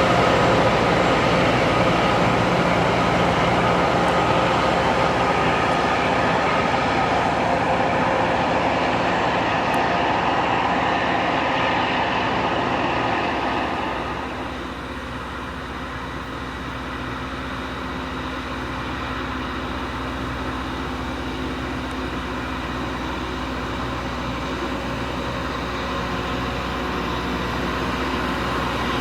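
Loram rail grinder running along the track, its diesel engines and grinding stones on the rail making a loud, continuous roar with steady tones. It drops off about halfway through, then slowly grows louder again.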